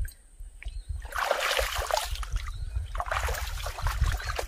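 Water splashing in two bursts of about a second each, a second apart.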